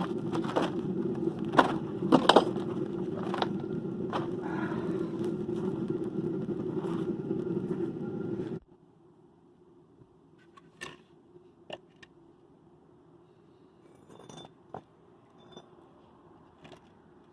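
A steady machine hum with scattered sharp clicks and knocks that cuts off abruptly a little over halfway through, leaving only a few faint clicks and knocks.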